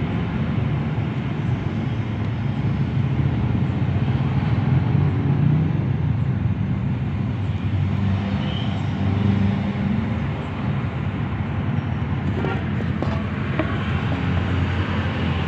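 Steady low hum of a car engine running, with road-traffic noise. A few faint clicks come about twelve to fourteen seconds in.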